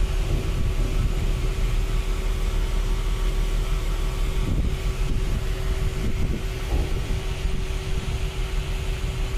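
Steady low rumble and hiss of ship machinery heard on deck, with a constant hum that stops near the end.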